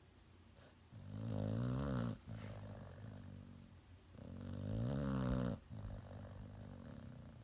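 A dog snoring in its sleep: two long, loud snores about three seconds apart, each followed by quieter breathing.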